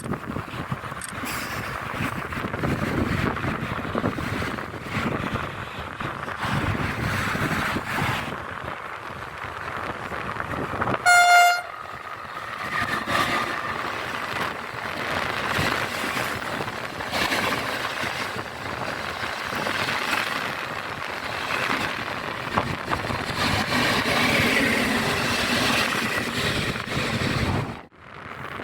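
A train running past with a steady rumbling rush, and one short horn toot, the loudest sound, about eleven seconds in.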